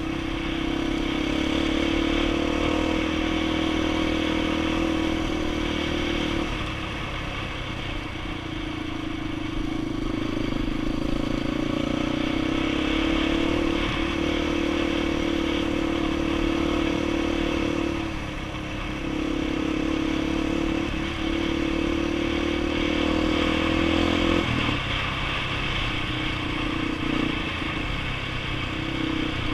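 A 230cc four-stroke single-cylinder trail bike engine running at a steady pace, with the throttle eased off briefly three times (about 7, 18 and 25 seconds in) before it pulls again.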